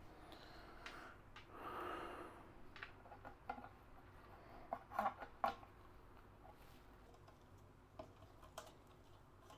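Quiet handling noises of PC parts and case hardware during assembly: a short rustle about two seconds in, then a few light clicks and taps around the middle and two faint ticks near the end.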